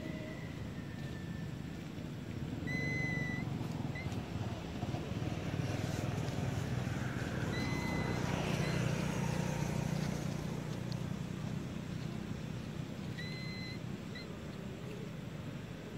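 A distant engine drone, like passing motor traffic, swelling in the middle and easing off again. Over it come several short, high whistle-like calls.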